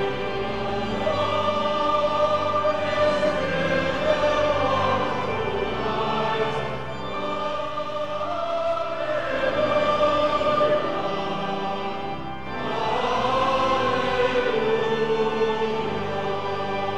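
Choir and clergy singing a hymn together in long, held phrases, with a brief dip between phrases about twelve seconds in.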